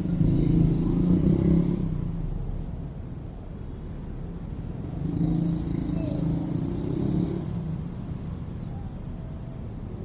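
Urban outdoor ambience dominated by road traffic: vehicles passing, loudest in the first two seconds and again about halfway through, over a steady low rumble.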